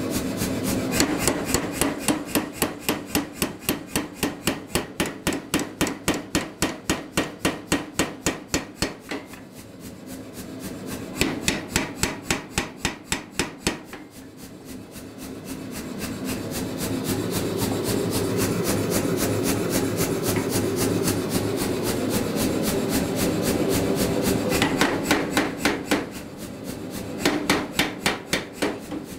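Say-Mak air power hammer striking a round punch into a hot steel hammer blank, punching the eye, in runs of rapid, evenly spaced blows broken by short pauses.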